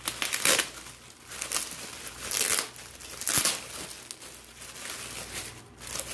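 Bubble wrap and plastic packaging crinkling and rustling as they are handled and pulled open, in irregular bursts, the loudest about half a second, two and a half seconds and three and a half seconds in.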